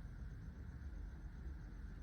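Steady low hum and faint hiss of background noise, with no distinct sound events.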